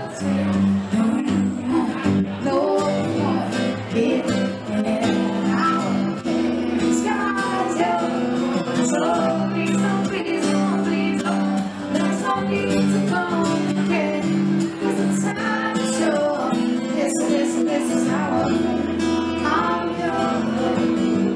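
A woman singing live to her own acoustic guitar accompaniment, in continuous sung phrases over steadily played chords.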